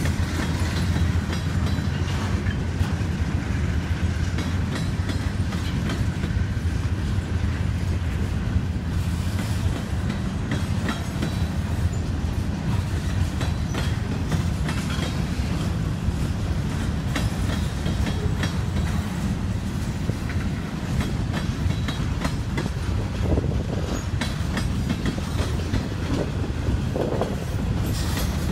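Freight train cars (tank car, flatcar and covered hoppers) rolling past, a steady heavy rumble with the wheels clicking over rail joints.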